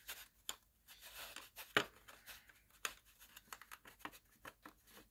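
Faint, scattered clicks and brief light scrapes of a hand screwdriver turning a screw through a thin wooden drawer front into a small metal knob.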